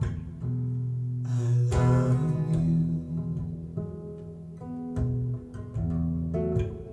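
Acoustic guitar playing a slow instrumental passage of single plucked notes over a moving bass line, with a strummed chord about two seconds in, played back over Audiovector QR5 floorstanding hi-fi speakers driven by a Cyrus ONE Cast amplifier.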